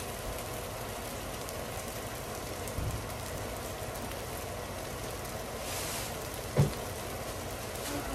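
Food sizzling steadily on a hot steel flat-top griddle, a constant frying hiss. A dull thump about three seconds in and a sharper knock near the end.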